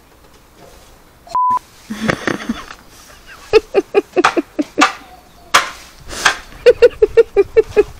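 A short one-kilohertz censor bleep about a second and a half in, cutting out everything else while it sounds. Then excited voices come in quick, choppy repeated syllables, with a couple of sharp clicks among them.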